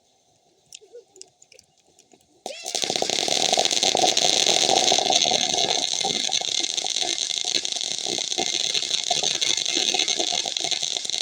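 A ground firework goes off about two and a half seconds in and keeps spraying with a loud, steady crackling hiss.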